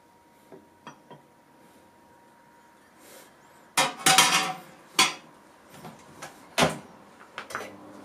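Kitchen handling clatter: light clicks as a lid is lifted off a small pot inside a Toshiba Ishigama Dome microwave oven, then a burst of hard clattering knocks, single sharp knocks, and the oven door being shut with a solid thud near the end, followed by small clicks.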